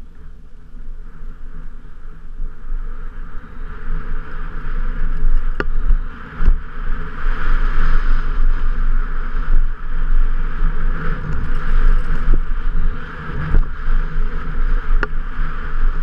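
Wind rushing over an action camera's microphone and Specialized Enduro Comp 29 mountain bike tyres rumbling on a dirt trail during a fast descent, louder from about four seconds in as speed builds. A couple of sharp knocks stand out.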